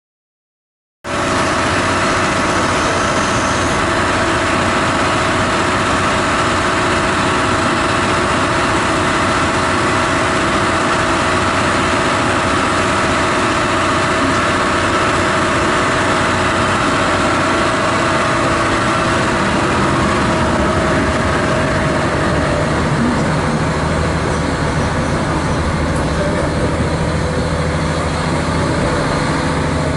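Diesel engine of a KiHa 40 railcar running, heard from inside the car. It starts about a second in and idles steadily; in the last few seconds its note changes as the railcar pulls away from the platform.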